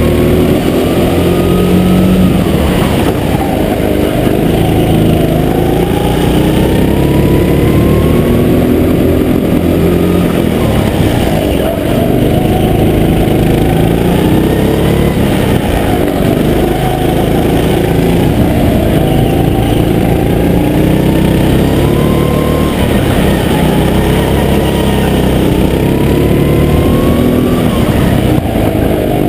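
Go-kart engine running hard through a lap, its pitch repeatedly rising as it accelerates and dropping back as it slows for the corners.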